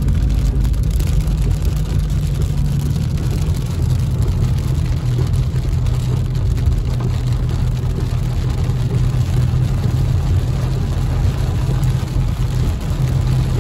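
Steady low engine and road rumble heard from inside a moving car on a rain-soaked road, with an even hiss of rain and tyre spray over it.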